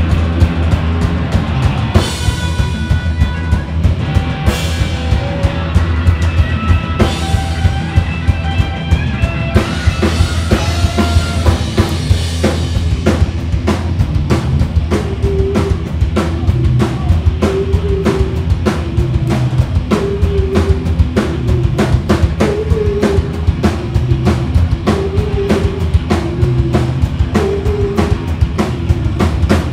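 Loud live rock band: a drum kit driving a fast, steady beat under electric guitar and bass. About halfway through, a short figure starts repeating over the beat.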